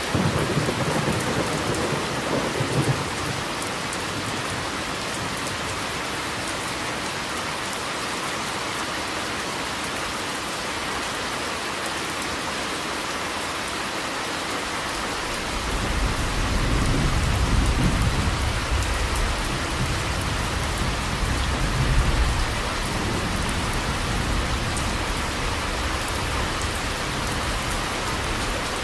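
Steady rain hissing, with thunder rumbling twice: briefly right at the start, then for several seconds from about halfway through, swelling to its loudest near the end of that roll.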